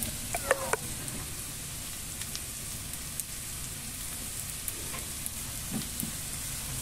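Small dried anchovies sizzling in hot oil in a frying pan, with scattered light crackles while a wooden spatula stirs them around.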